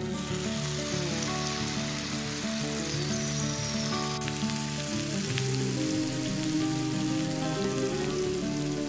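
Battered banana flower strips deep-frying in hot oil in a wok: a steady sizzle that starts as the strips go into the oil. Background music plays underneath.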